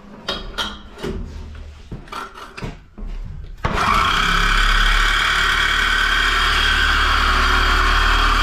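A few handling clicks and knocks, then about three and a half seconds in a power tool starts suddenly and runs steadily, cutting the oil tank's pipe.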